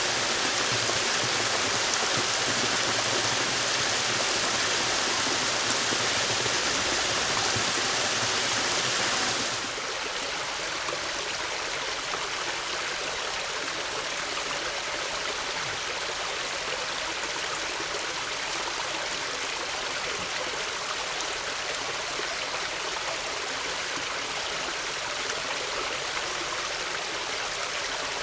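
Mountain headwater stream flowing over rocks, a steady rush of water. About ten seconds in it switches abruptly to a second stream recording that is slightly quieter, with less low rumble and brighter splashing.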